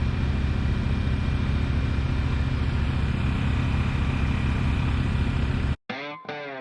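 Boat motor running steadily at speed under way, a loud even drone. It cuts off suddenly near the end and electric guitar music begins.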